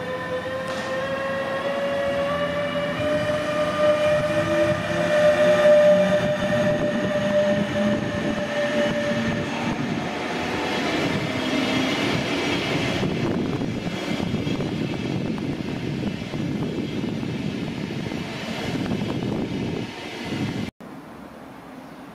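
DB Class 146 electric locomotive hauling an Intercity 2 double-deck train past, its traction whine rising slowly in pitch as it gathers speed and then fading. The wheels of the double-deck coaches follow with a continuous rumble and clatter that cuts off abruptly near the end.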